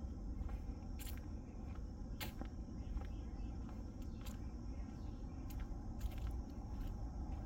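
Footsteps on an asphalt path scattered with dry leaves, irregular sharp steps and crunches about every half second to a second, over a steady low rumble.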